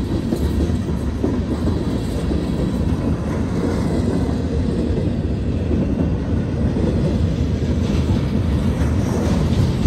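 Freight cars of a long mixed freight train (gondolas, centerbeam lumber flatcars, tank cars) rolling past at close range: a steady low rumble of steel wheels on the rails.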